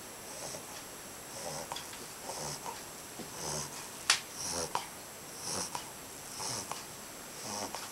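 A 2.5-month-old Labrador puppy snoring in its sleep: soft, wheezy snoring breaths about once a second. A single sharp click about four seconds in.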